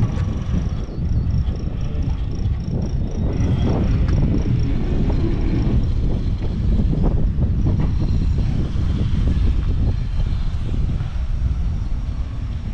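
Semi-truck engine running at low speed as the truck and trailer are manoeuvred, with irregular knocks and rattles. A faint high beep repeats about three times a second for the first few seconds.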